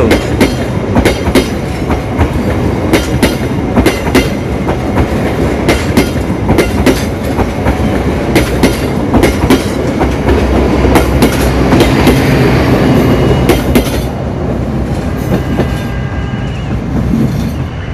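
Mutiara Selatan passenger train's stainless-steel coaches passing close by, their wheels clacking over the rail joints over a steady rumble. The clacking stops about fourteen seconds in as the last coach goes by, and the train's noise fades away.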